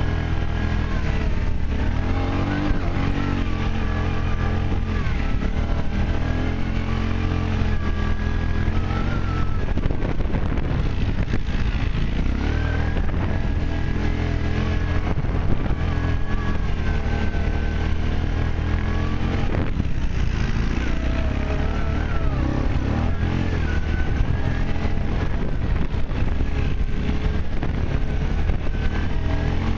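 ATV engine running under way over rough grass, heard close from on board. Its pitch wavers up and down with the throttle.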